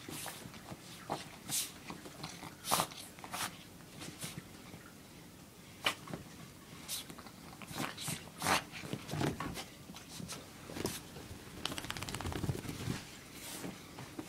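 A Chihuahua scrabbling and rubbing itself in blankets after a bath, giving irregular rustling and scratching of fabric, with a denser run of fast scratching near the end.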